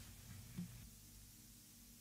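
Near silence as acoustic guitar music dies away, with one brief faint low sound about half a second in.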